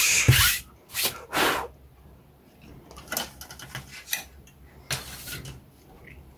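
A hand brushing twice across a cloth work mat, sweeping away bits of plastic flash, then light clicks and rattles as a plastic model-kit sprue is picked up and handled.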